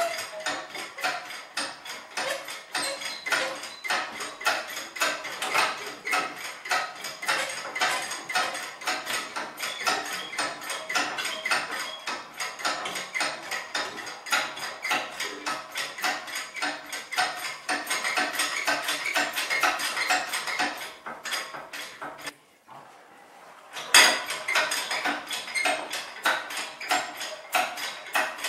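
Engine hoist being pumped to lift a car engine out of its bay: a dense, irregular run of metallic clicking and clanking, several clicks a second. Near the end it stops for about a second and a half, then resumes with a sharp knock.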